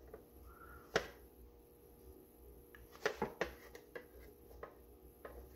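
Small plastic bit box being handled and turned in the hands, showing its repaired hinge: a sharp click about a second in, then a short cluster of light plastic clicks and knocks about three seconds in, with faint ticks between.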